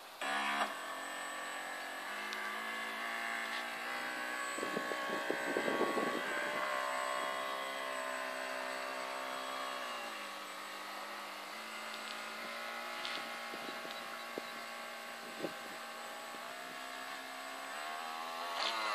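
Dragon Hobby V24 RC boat's 2881 kV Minicat brushless motor on 4S LiPo, whining as the boat throttles up and runs across the water. The pitch shifts up and down with the throttle and dips about ten seconds in, with a rougher, noisier stretch around five to six seconds in.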